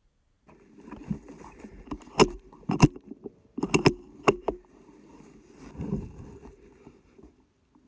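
Handling noise as a phone is fitted and lined up on a rifle scope: rustling with several sharp clicks and knocks two to four seconds in, and a duller thump near the end.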